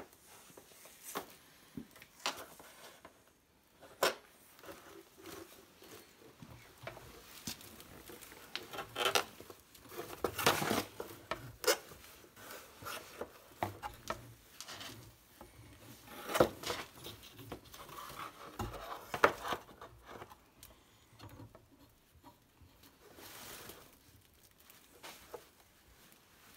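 Scattered handling noises: clicks, taps and rustling as a plastic-sheathed heating cable is worked through a fitting and fed into a water pipe, louder around ten seconds in and again between about sixteen and nineteen seconds.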